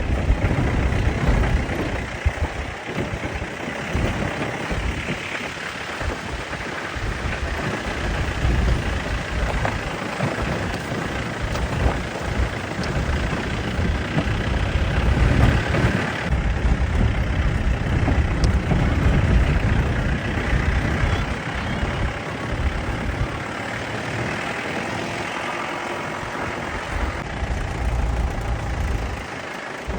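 Engine and uneven low rumble of a safari jeep driving, heard from on board.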